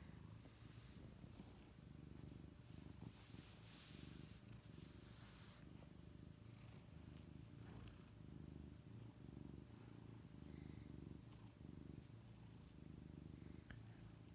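Domestic cat purring while being stroked on the head: a faint, low rumble that swells and eases with each breath. A brief soft rustle comes about four seconds in.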